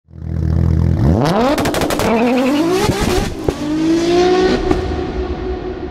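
Engine revving hard as an intro sound effect: a low idle, then repeated rising revs with sharp pops and cracks, then a held note that slowly fades away.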